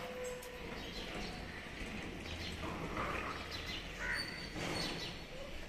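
Birds chirping in short, scattered calls over steady background noise.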